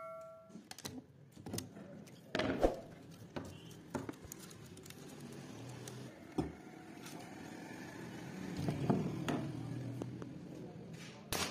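Irregular light clicks, taps and a few sharper knocks as thin wire is cut with pliers and twisted by hand around a split wooden axe handle on a wooden bench.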